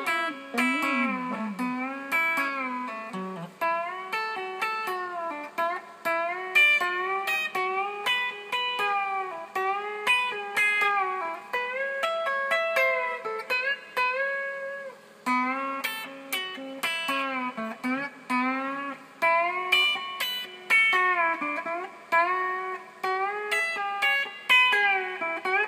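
Telecaster electric guitar played with the fingers: a continuous run of plucked licks full of string bends, with notes sliding up and down in pitch.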